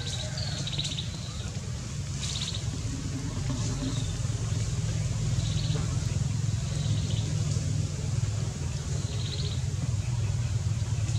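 Outdoor background: a steady low hum, with short high chirps every second or two.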